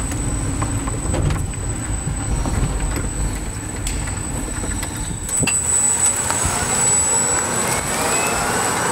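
EV Fleet Condor all-electric pickup truck driving: a low rumble of tyres and body noise with a thin, steady high-pitched whine, then a rising whine from about six seconds in as the electric drive speeds up.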